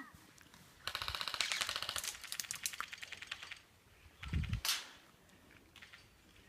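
Automatic airsoft gun firing a long run of rapid shots from about one second in to about three and a half seconds. A dull thump and a single sharp crack follow a second later.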